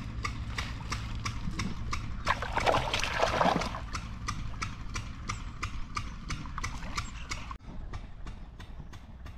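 Rapid, evenly spaced clicking, about four clicks a second, over a low steady hum, with a brief louder burst about two and a half seconds in.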